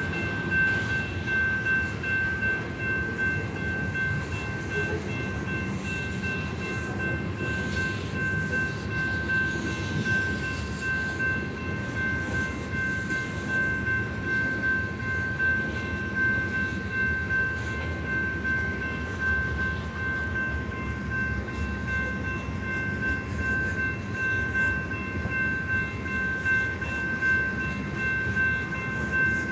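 Freight train of loaded covered hopper cars rolling through a grade crossing: a steady rumble with rhythmic clacking as the wheels cross the rail joints. Through it runs a steady, ringing, repeating tone from the crossing warning bell.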